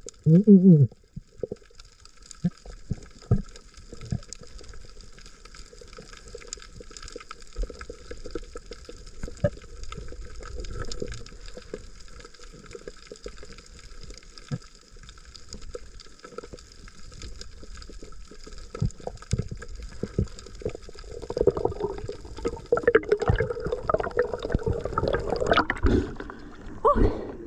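Water gurgling and sloshing in irregular bursts over a steady faint hiss, getting busier and louder for the last several seconds.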